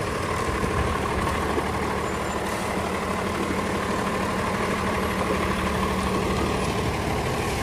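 Freightliner medium-duty wrecker's diesel engine running steadily close by, a constant low hum.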